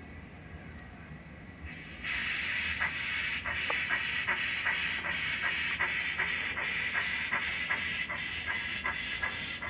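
Model steam locomotive's DCC sound decoder playing steam sounds through its small speaker as the pannier tank gets under way: a steady steam hiss comes in about two seconds in, with chuffs at about three a second.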